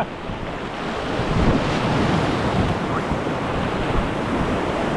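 River water rushing and splashing through a rapid around a kayak, with wind noise on the microphone.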